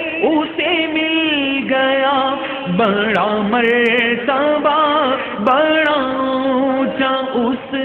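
A man singing a naat, an Urdu devotional poem, in long ornamented phrases whose pitch slides and wavers, broken by short breaths.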